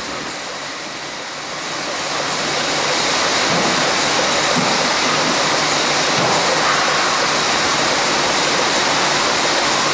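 Steady rushing hiss of a jar-filling production line running, with jars of marmalade riding a conveyor; it swells over the first few seconds, then holds level.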